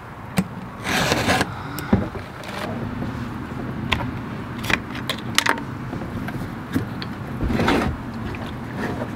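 Handling clicks and plastic rattles from a Stihl chainsaw as its tank cap is twisted loose and lifted off: a string of short clicks and a few brief rustles over a steady low hum.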